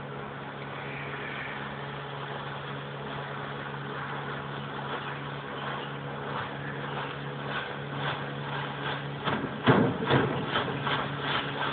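Boat's outboard motor running steadily with a constant hum. From about eight seconds in, a run of sharp knocks and slaps comes over it, loudest near the ten-second mark.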